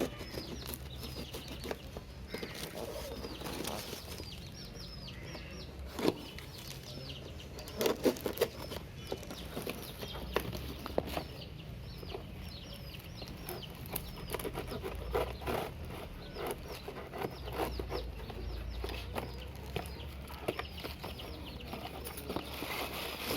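Birds chirping with short, repeated high calls, with fowl clucking among them. A few sharp knocks stand out about six and eight seconds in.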